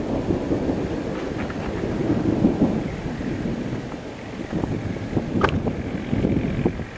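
Thunder rolling in a long, low rumble that swells about two seconds in and again near the end, with a couple of sharp clicks about five seconds in.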